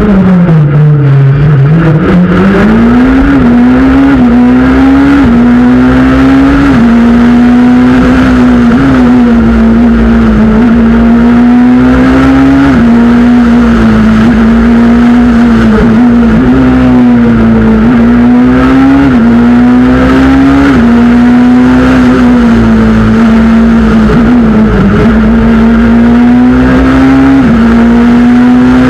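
Peugeot 207 S2000 rally car's naturally aspirated 2.0-litre four-cylinder engine at full stage pace, heard onboard. The revs dip low near the start as the car slows for a tight turn, then climb in short runs that drop sharply again and again at each gear change.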